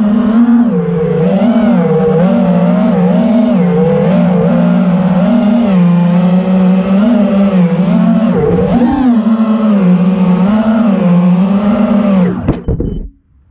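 FPV racing drone's brushless motors whining, the pitch rising and falling continuously with the throttle. Near the end the whine falls away and cuts off as the motors spin down.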